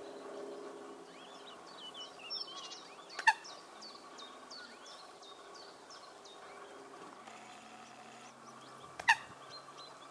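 Eurasian coots calling: two short, loud, sharp calls about six seconds apart, with a run of thin, high, falling chirps between them.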